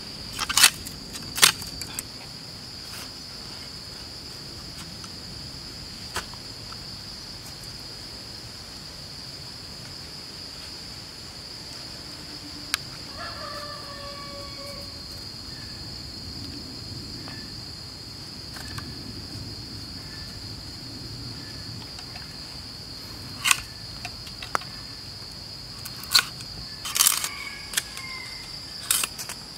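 Steady high-pitched insect drone, like crickets, with a few sharp wooden knocks and clicks as sticks of a stake-and-log trap are handled: two about a second in and a cluster near the end.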